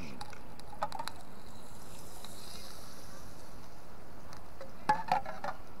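Portable gas camp stove burning with a steady hiss under a pot of heating cooking oil. A brief pitched sound comes near the end.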